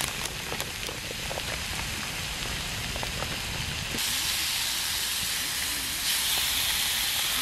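Marinated meat sizzling in a hot steel frying pan over a wood fire, the sizzle growing louder about four seconds in and again near six seconds as tongs turn the meat, with a few light clicks.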